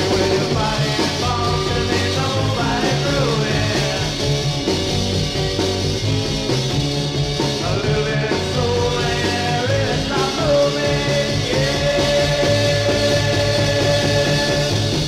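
1960s rock record playing: electric guitar, bass and drums with a sung vocal line, and one long held note near the end.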